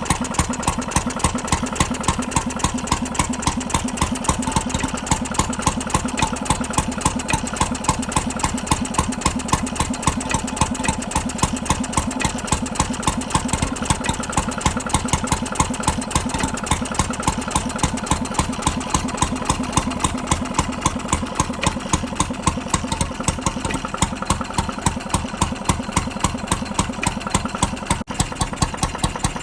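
Restored 3 hp Petter appletop stationary engine running steadily, each firing stroke a distinct, evenly spaced beat.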